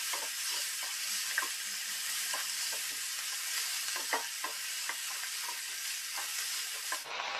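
Mushrooms, diced onion and bell peppers sizzling in oil and butter in a nonstick kadai over high heat, with a steady hiss. A wooden spatula stirs them, scraping and knocking on the pan many times at an irregular pace.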